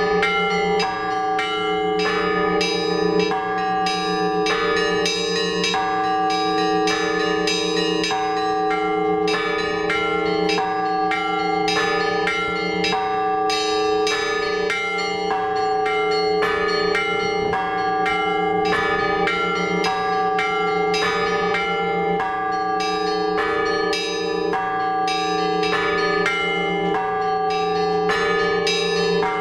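Orthodox church bells rung by a bell-ringer: a continuous, rapid peal of small bells struck several times a second over the steady ring of lower bells.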